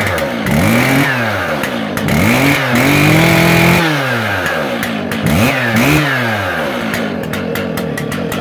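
Stihl 088 Magnum chainsaw's 122cc two-stroke engine revved in a series of quick throttle blips, one held at high revs for about a second, then dropping back to a steady idle near the end.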